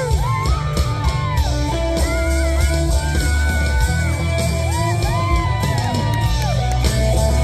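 Small rock band playing live: electric guitars and drum kit, with a high melody of held notes that bend up and down between pitches.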